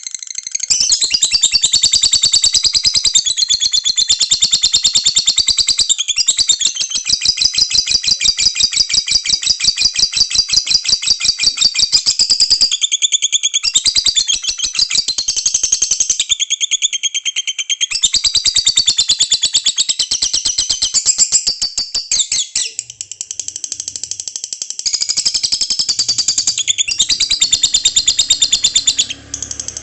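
Female lovebird ngekek: a long, fast, rattling chatter of rapid high chirps strung together almost without a break, interrupted only by a few brief pauses.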